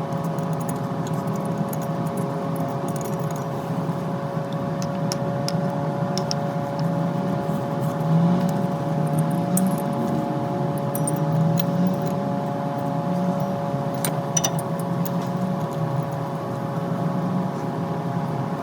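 Occasional light metallic clinks of a wrench working the serpentine belt tensioner, over a steady humming drone.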